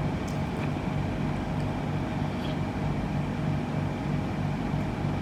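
Steady mechanical hum with a low drone that pulses evenly, and a few faint ticks.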